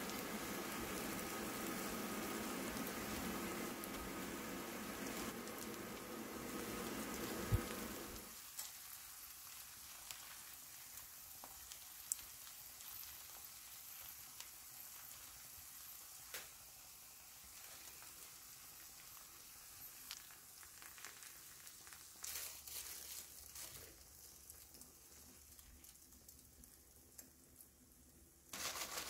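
A cabbage pancake sizzling in a frying pan. About eight seconds in the sizzle drops away sharply, leaving a quiet background with scattered light taps and brief rustles as toppings are laid on.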